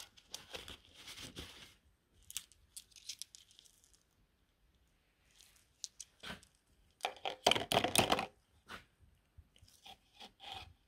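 Handling noise from hands at a workbench: rustling and crinkling in several short bursts, with a few sharp clicks. The loudest burst comes about seven seconds in and lasts about a second.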